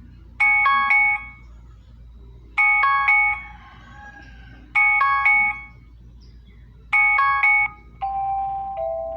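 Phone alarm tone: a short burst of quick, bell-like notes repeated four times, about every two seconds. About eight seconds in a different alarm tone starts, with longer held notes.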